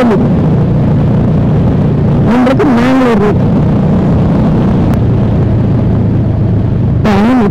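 Motorcycle engine of a Bajaj Dominar 400 running steadily at riding speed, with wind noise over the microphone. A brief voice is heard about two and a half seconds in and again near the end.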